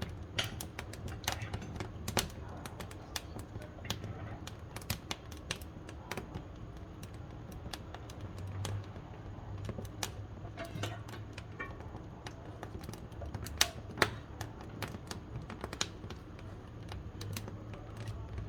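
Wood fire crackling in a wood-burning stove: irregular snaps and pops over a low rumble, with two louder snaps close together a little past two-thirds of the way through.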